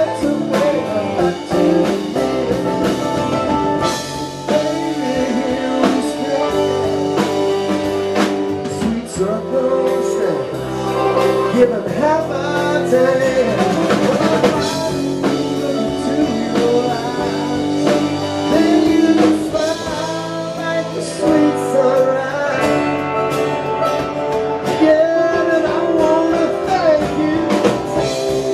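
Live band playing a blues-rock song on electric guitar, acoustic guitar, upright bass and drum kit, recorded through a small camcorder's built-in microphone.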